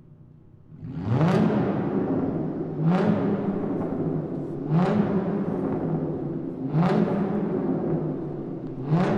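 Car engine revving in the echo of a parking garage: after a faint start it blips up sharply five times, about every two seconds, each rev rising quickly and falling back.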